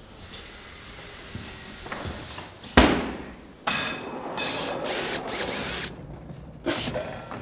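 A wheeled flight case rolling across a wooden stage floor. A single loud bang comes a little before the halfway point, then about two seconds of rolling with squeaking casters. Near the end there is one short, bright hi-hat cymbal hit.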